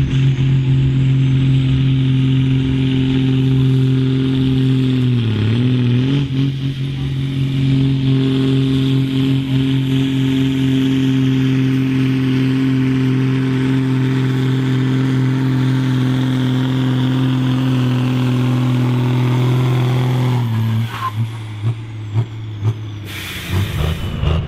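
John Deere 4440's turbocharged six-cylinder diesel working at full load, pulling a tractor-pulling sled. The engine note is loud and steady, dipping briefly about five seconds in as the engine lugs down, then picking back up. Near the end the note breaks off and the sound drops as the pull ends.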